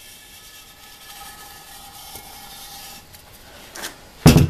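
Paddle scraping the thick sludge buildup from the inside wall of a waste-oil centrifuge bowl: a steady rubbing scrape. Near the end comes one sharp knock, just after a smaller one.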